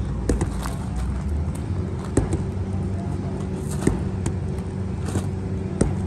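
Crane's engine running steadily with a low hum, while the I-beam is lowered into the roof opening. Scattered sharp clicks and knocks are heard over it several times.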